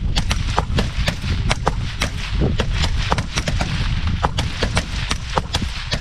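Several rifles firing at once on a range: a rapid, uneven string of shots, several a second, with a steady low rumble underneath.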